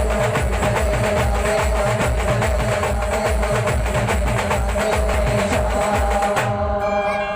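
Indian procession brass band playing loud percussion-heavy music over a fast, steady bass-drum beat. About six and a half seconds in the drumming stops, and a few held tones are left sounding.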